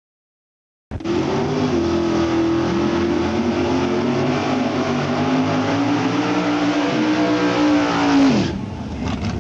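A Camaro drag car's engine held at high revs through a burnout, the rear tyres spinning and smoking; it starts about a second in and the revs fall away sharply near the end as the throttle is released.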